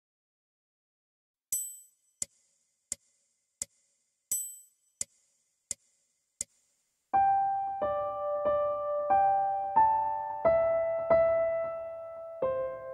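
Background music: a sharp high ticking beat, about one tick every 0.7 s with every fourth tick ringing longer, then piano notes struck on the same beat come in about seven seconds in.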